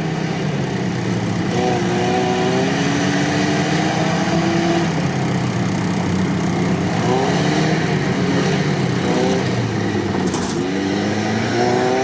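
UAZ Patriot engine working hard under load and revving up in two long rises as the 4x4 pushes through deep mud with its differentials locked.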